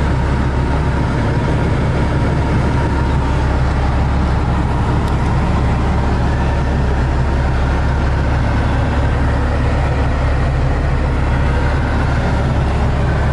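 2003 Peterbilt 379's diesel engine idling steadily, heard from inside the cab.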